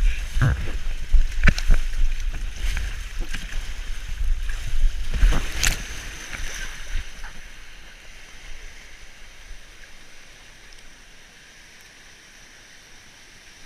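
Rider on a foam mat sliding down a water slide: water rushing and splashing, with the mat knocking and thumping on the slide. It is loud and uneven for the first several seconds, then dies away to a faint hiss.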